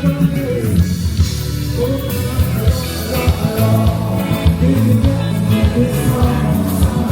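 Loud music with a heavy, stepping bass line and some singing, played over a concert sound system.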